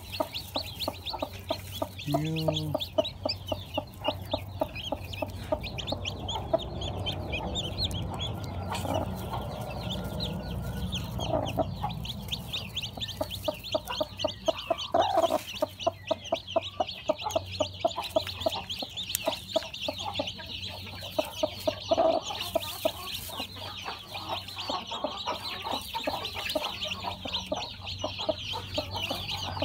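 Newly hatched chicks peeping without pause, many rapid high-pitched cheeps overlapping, with lower clucking calls mixed in.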